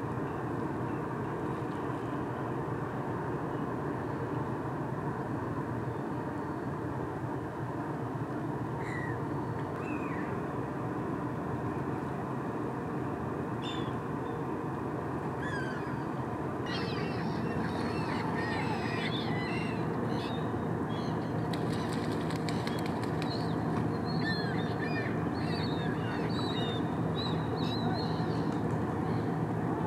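Steady low drone of a large ship's engines, with birds calling over it: a few short calls at first, then many quick chirps and squawks through the second half, as the drone grows slightly louder.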